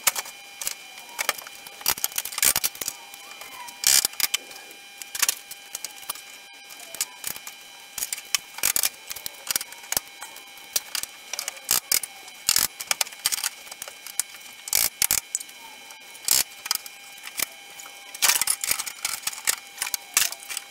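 Irregular clatter and knocks of metal tools and car body parts being lifted out of a car's boot and set about the rear of the car, over a faint steady whine.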